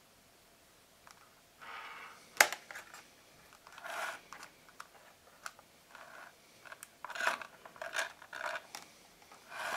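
Hands handling earphones and their plastic packaging, making scrapes, rustles and light clicks, with one sharp click about two and a half seconds in as the loudest sound.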